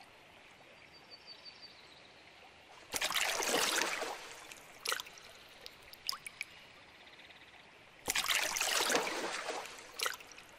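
Water splashing twice as a frog leaps out of shallow water, each splash a loud rush lasting about a second and a half that dies away, with scattered drips between.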